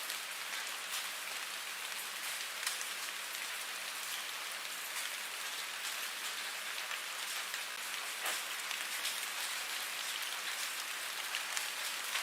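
Steady rain falling on a surface: an even hiss with many scattered drop ticks, a few louder single drops standing out.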